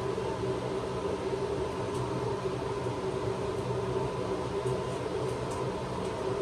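Steady mechanical hum with a constant low drone, from equipment running in a mobile dog-grooming van, with a few faint ticks over it.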